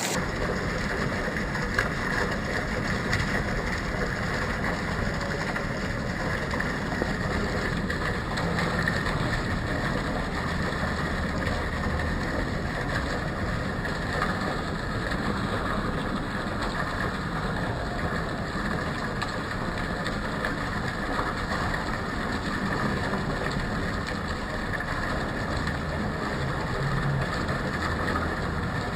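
Steady urban background noise: a continuous hiss over a low rumble, with no distinct calls.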